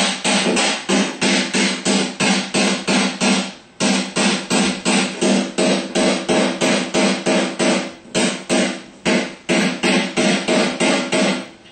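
A hammer tapping briskly and steadily on the heated aluminium front housing of a Ford 3G alternator, about three or four ringing metal strikes a second, with short pauses about four and eight seconds in. The tapping drives the stator windings out of the aluminium front plate during the rebuild.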